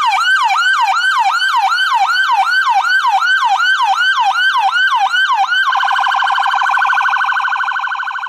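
Electronic ambulance siren in a yelp, each sweep falling from high to low, about three a second. About six seconds in it switches to a much faster warble, which begins to fade near the end.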